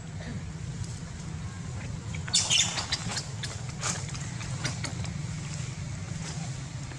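Outdoor ambience: a steady low hum with scattered short rustles and clicks. The loudest is a brief rustle about two and a half seconds in.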